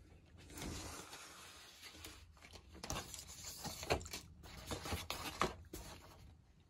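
Paper packaging rustling and crinkling as cards and wrapping paper are handled, with a few sharper crackles in the second half.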